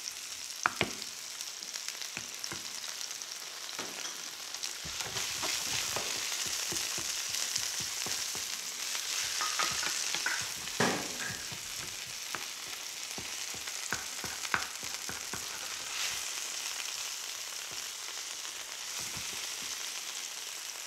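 Veal medallions in a mushroom and onion sauce sizzling in a frying pan, stirred with a wooden spoon that scrapes and knocks against the pan. The sizzle is loudest about a third of the way in.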